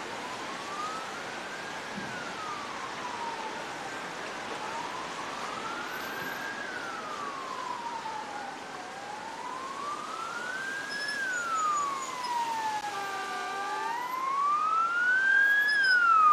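Emergency vehicle siren wailing, slowly rising and falling about every four and a half seconds and growing louder near the end. A second, higher-pitched siren joins in the last few seconds, with a short steady tone about two thirds of the way through.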